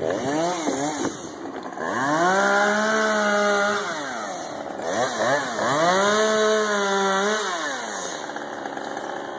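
Two-stroke chainsaw revving: a few short blips, then twice it climbs to full speed, holds for about two seconds and drops back to idle.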